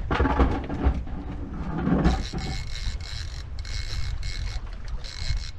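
Wind buffeting the microphone on a small fishing boat, with knocks and handling noise in the first two seconds, then a repeated mechanical clicking through the rest.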